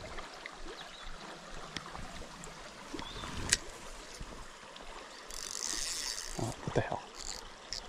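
Shallow rocky creek trickling steadily, with a sharp click about halfway through and a short hiss and rustle later on as a spinning rod and reel are handled.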